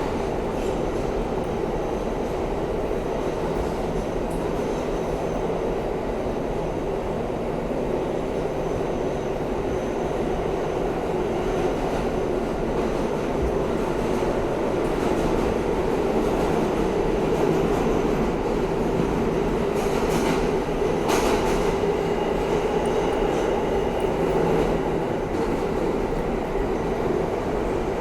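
Inside an R160A subway car running between stations: steady rumble of steel wheels on rail, with a few brief clicks about twenty seconds in.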